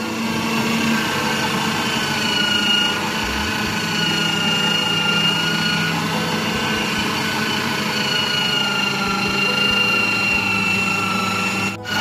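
Mega Star 800 W electric meat grinder running under load as it grinds vegetables: a steady motor hum with a high whine that wavers slightly in pitch. The sound dips briefly just before the end.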